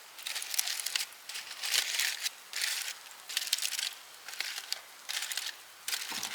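Aluminium foil of a hobo-meal packet being crinkled as it is opened, in a string of about eight short crinkling rustles.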